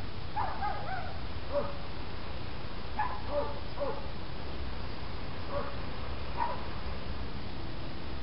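A series of about seven short animal calls at irregular intervals, several falling in pitch, over a steady low background noise.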